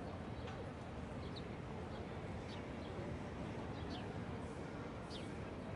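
City street ambience: a steady low rumble of distant traffic, with small birds chirping in short, high notes every second or so.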